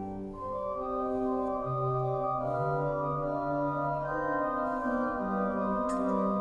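Church organ playing slow, sustained chords, the held notes changing every second or so.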